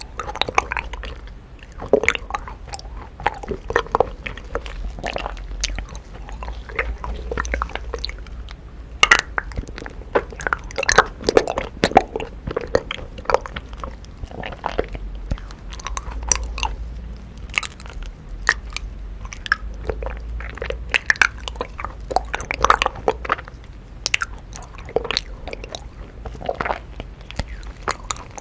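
Close-up chewing and biting of honeycomb: a steady, irregular run of crunches and sharp little clicks as the waxy comb is chewed.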